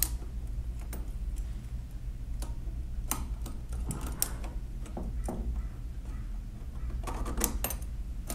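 Light metal clicks and taps from the parts of a 1920s Monroe mechanical calculator being handled as a screw is fitted through its frame, scattered at first with a quick cluster near the end, over a steady low hum.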